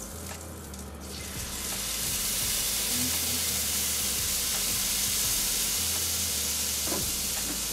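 Lentil filling and kibe, a spiced clarified butter, sizzling on a hot flat-top griddle. The sizzle swells about a second in, then holds steady.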